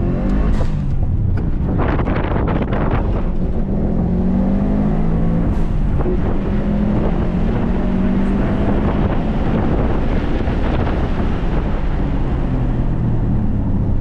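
Subaru WRX STI's turbocharged 2.5-litre flat-four engine driven hard on a track run, its pitch climbing and dipping with throttle and gear changes, over steady wind and tyre noise.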